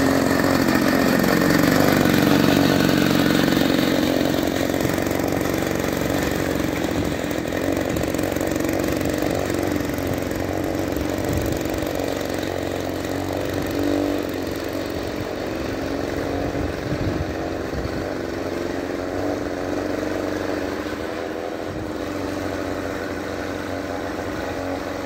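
Homemade single-wheel snow machine's Ural chainsaw two-stroke engine running as it drives across snow. It is loudest about two seconds in, then grows gradually fainter as it moves away, its pitch wavering with the throttle.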